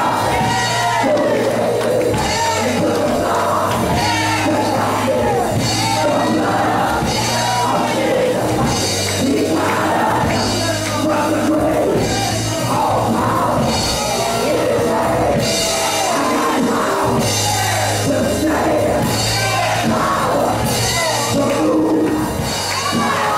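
Live church band playing loud music, with drum kit and bass guitar, and voices singing and shouting over it.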